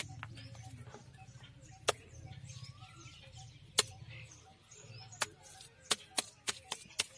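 Wet clay being scooped from a bucket and slapped and patted between a potter's hands: sharp wet slaps, a few spread out at first, then about three a second near the end.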